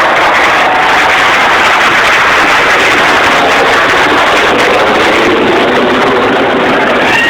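Four turbofan engines of a B-2 Spirit bomber passing low overhead, a loud steady rushing jet noise.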